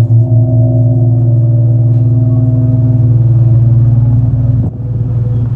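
Large bossed gong ringing after a strike with a padded mallet: a deep, steady hum with higher overtones above it. About four and a half seconds in, the ring drops and changes.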